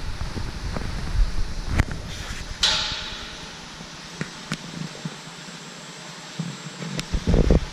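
An automated apple bin handling line of chain conveyors and a gantry robot, running with a low rumble that eases after about three seconds. There is a short hiss about two and a half seconds in, scattered metallic clicks, and a cluster of heavy knocks near the end.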